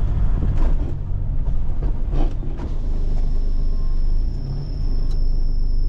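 Vehicle engine and tyres rumbling low and steady while driving, with a few brief knocks. About halfway through, a steady high-pitched insect drone begins.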